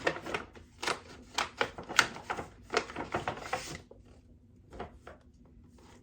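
Packaging being handled and opened: a quick run of irregular sharp clicks, taps and crinkles that dies down after about four seconds, leaving a few soft knocks.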